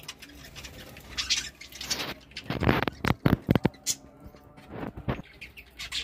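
A flock of budgerigars chattering in scratchy bursts, with a few loud, sudden thumps about halfway through and another near the end.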